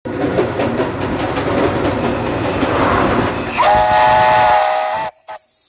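Steam locomotive hissing steam, then its whistle sounds about three and a half seconds in: a steady chord of several tones held for about a second and a half before cutting off suddenly, followed by a single knock.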